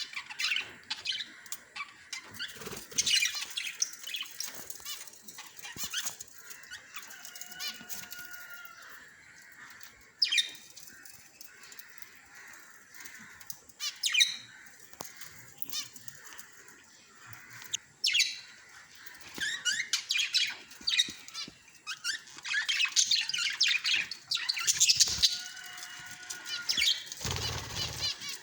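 Small pet parrots (lovebirds) chirping in quick, high-pitched bursts, on and off, with a low thump near the end.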